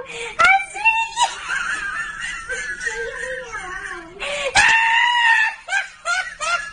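High-pitched human squeals and shrieks with sliding pitch, one of them longer, about four and a half seconds in.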